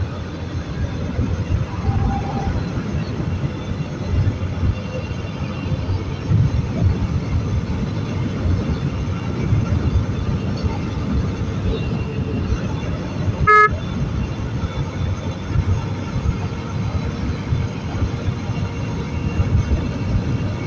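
Wind rushing and buffeting over a motorcycle at highway speed, mixed with road noise. There is one short horn beep about two-thirds of the way through.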